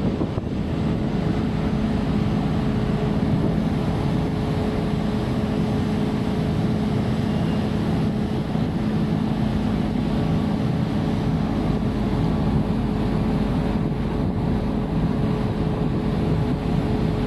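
Heavy diesel engine of crane machinery running steadily at a constant speed: a low, even drone with a steady hum and no revving.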